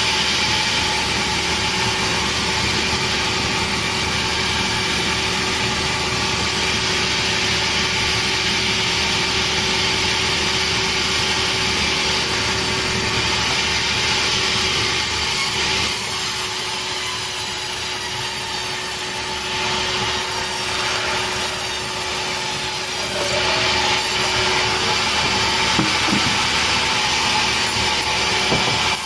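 Sawmill saw running steadily through a petai log, a wood whose fibres quickly dull the saw blade. The sound eases a little past the middle and picks up again near the end.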